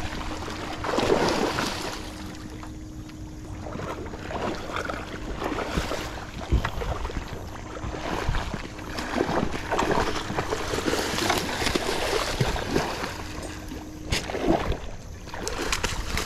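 Shallow river water splashing and sloshing in irregular surges.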